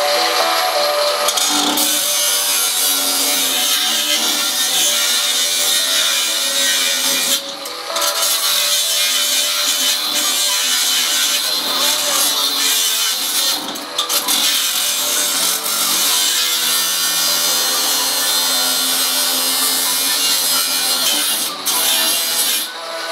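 Angle grinder grinding metal: a loud steady hiss and whine that eases off briefly three times as the disc lifts off the work.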